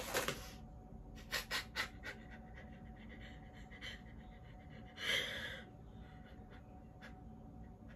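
A woman crying, heard as sniffles and shaky, heaving breaths: one at the start, three quick ones about a second and a half in, and a longer one around five seconds in.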